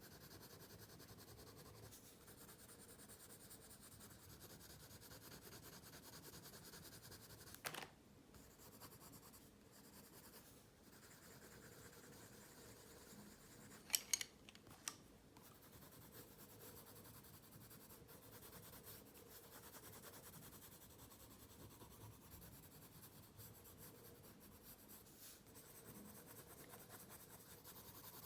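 Pencil scratching and shading on paper, faint and steady. A few sharp clicks break in, one about a third of the way through and a quick cluster near the middle.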